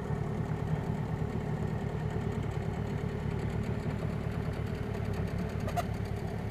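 Small outboard motor running steadily at low throttle, pushing a dinghy along.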